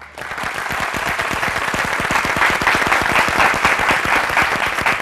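Applause from an audience: many hands clapping, starting abruptly and swelling within about half a second, then holding steady.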